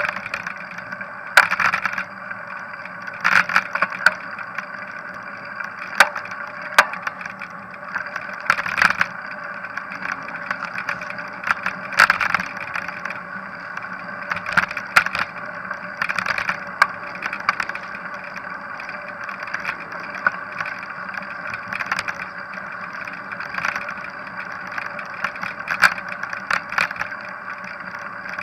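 A bicycle riding along a paved path, heard through a camera mounted on its handlebars: a steady rolling hum broken every second or two by sharp clicks and knocks, the rattle of the bike and camera mount over bumps and joints in the paving.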